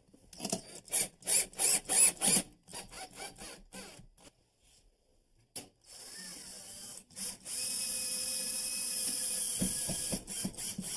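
Cordless drill/driver driving screws through a steel mounting bracket into wood blocking: a run of sharp clicks and knocks in the first couple of seconds, then the drill's motor running steadily from about six seconds in, louder for its last two seconds.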